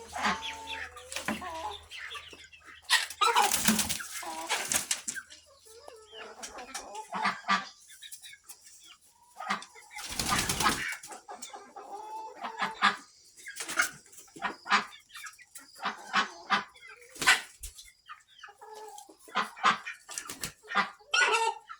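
Barn chickens clucking, with short sharp clicks between the calls and loud bursts of wing flapping about three and ten seconds in.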